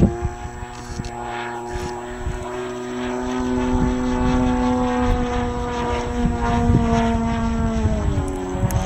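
Radio-controlled Extreme Flight Edge 540T aerobatic model plane droning overhead, its propeller note rising slightly, holding steady, then dropping in pitch near the end as the throttle or attitude changes. Gusts of wind buffet the microphone underneath.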